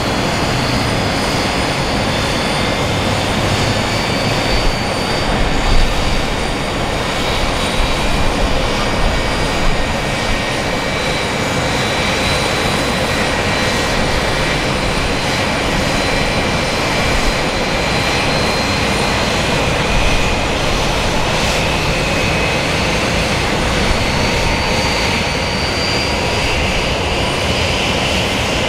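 Airbus ACJ319's IAE V2500 turbofan engines running steadily at low power as the jet taxis close by: a constant jet noise with several thin, high-pitched whining tones from the fans, some drifting slowly in pitch.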